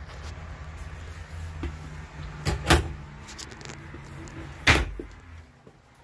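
Wooden cabinet or wardrobe doors being shut: a sharp double knock about two and a half seconds in and a single knock near five seconds, over a low steady hum.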